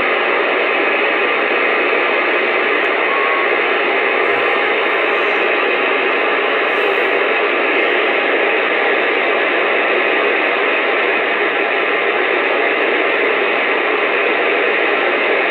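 Uniden Bearcat CB radio receiving on AM, its speaker giving a steady, loud hiss of static with no voice in it.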